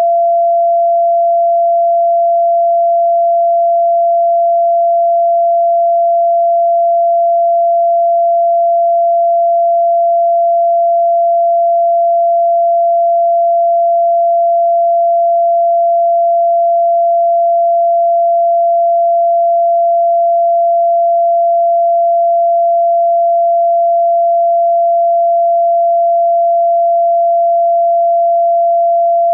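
Pure sine tone held steady at about 683 Hz (682.85 Hz), the F note in the fourth octave of a scale tuned to A = 432 Hz. It stays constant in pitch and loudness.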